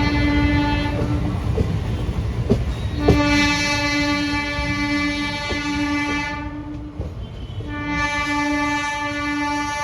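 Train horn sounding a single steady note in long blasts: one ending about a second in, a long one from about 3 s to 6 s, and another starting near 8 s, over the continuous rumble and clicking of a train running on the rails.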